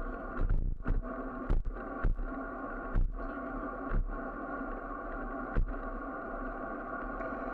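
Handlebar-mounted camera on a moving bicycle: a steady hum of riding, with sharp knocks and rattles as the bike jolts over bumps in the road surface, fewer and further apart as the ride goes on.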